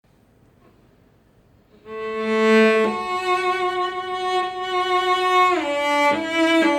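A cello being bowed, starting about two seconds in with a short note, then a long held note, then a few shorter notes stepping lower near the end.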